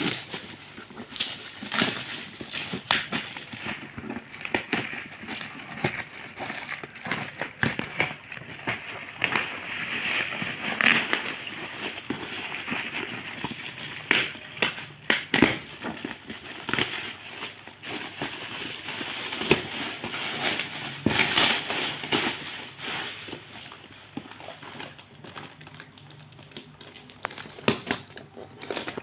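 Toy packaging being handled and opened: crinkling and rustling with many irregular clicks and taps.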